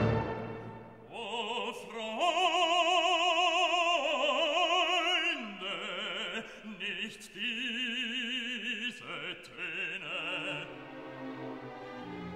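Background music: a classical operatic voice singing long held notes with strong vibrato, the melody stepping down in pitch about halfway through.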